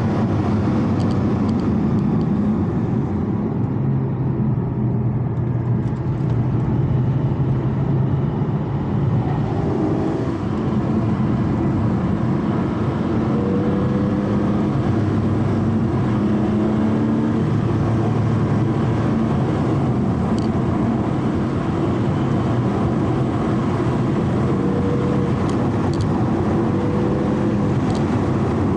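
Porsche Cayman GT4's flat-six engine running at low, easy revs with steady tyre and road noise, the car cruising slowly downhill. The engine pitch shifts a little now and then.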